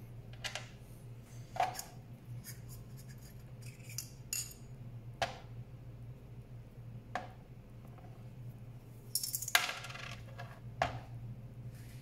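Small metal parts of a manual burr coffee grinder clicking and clinking as they are handled and set down: scattered light clicks a second or two apart, with a brief longer metallic rattle about nine and a half seconds in. A faint steady low hum runs underneath.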